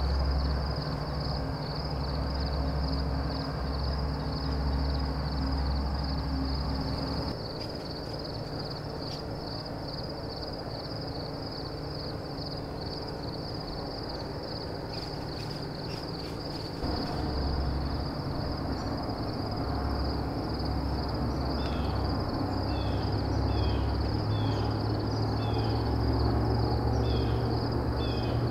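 Outdoor evening ambience: a steady, rapidly pulsing high-pitched insect chorus over a low rumble. A run of short falling chirps, roughly one a second, comes in over the last few seconds.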